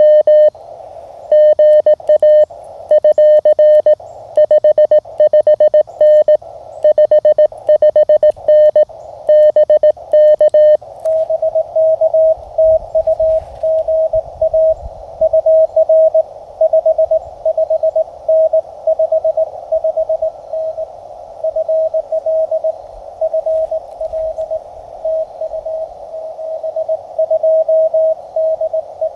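Morse code (CW) from a Mountain Topper MTR QRP transceiver. For about the first eleven seconds it is the radio's own sidetone, a clean keyed tone as the operator sends. After that a slightly higher-pitched station is heard sending back through steady hiss of band noise in the receiver's narrow CW filter.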